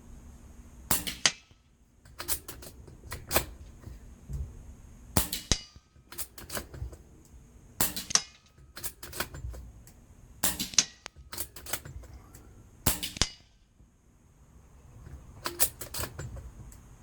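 Air rifle shots and pellet hits on a children's xylophone target: about a dozen sharp cracks, often in close pairs. The hits land as dull whacks rather than musical pings.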